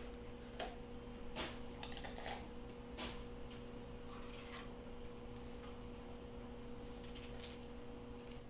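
Faint, scattered crisp cuts of a small knife slicing through a red bell pepper held in the hand, a few separate clicks spaced irregularly, over a faint steady hum.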